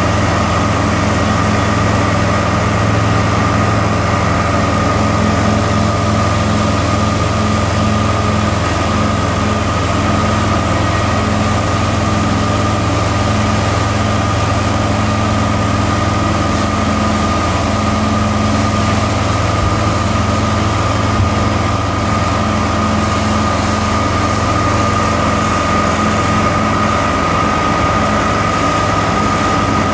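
Somero laser screed running steadily as it levels wet concrete: its engine and vibrating screed head make a constant machine drone with a steady high-pitched whine above it.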